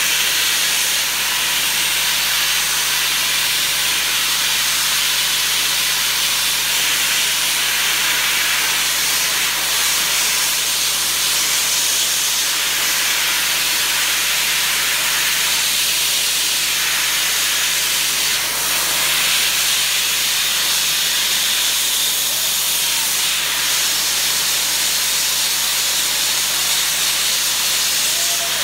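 Sandblasting nozzle blasting the underside of a reinforced-concrete roof slab: a loud, steady hiss of compressed air and abrasive, cleaning the rust off the exposed reinforcing bars and stripping away the crumbling concrete around them.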